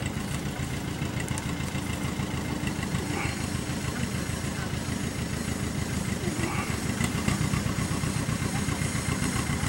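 A small engine running steadily at idle, a continuous low throb.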